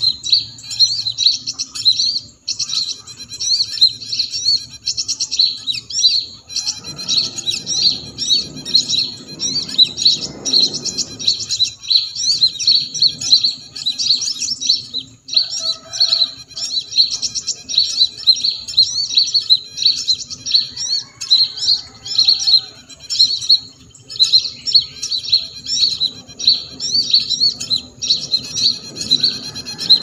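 Dense, continuous chirping of small birds from a recorded bird-lure call (pikat) played through a small speaker to draw small birds to lime sticks. A brief rustle sounds underneath about seven to twelve seconds in.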